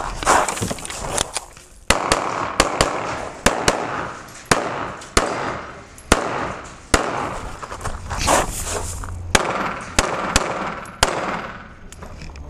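Rapid pistol fire in a practical-shooting stage: a long string of sharp shots, one every half second to a second, starting about two seconds in and running until near the end. Between the shots there is crunching on gravel and rustling as the shooter moves.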